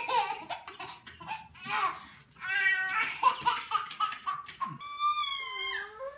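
Hearty laughter in quick repeated bursts. Near the end a long high-pitched wail is held, then drops in pitch.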